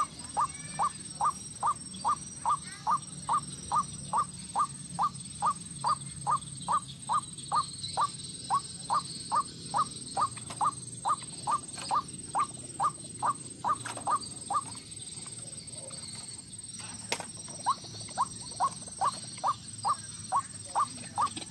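White-breasted waterhen giving its 'ruak-ruak' call: a steady run of short, identical notes, about two and a half a second. The run breaks off for about three seconds two-thirds of the way through, then starts again at the same pace.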